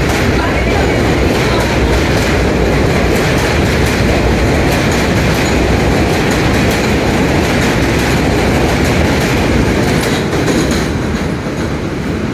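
An R188 subway train on the 7 line runs past close by on an elevated track: a steady, loud rumble of steel wheels on rail with clickety-clack over the rail joints. The sound eases off near the end as the last car moves away.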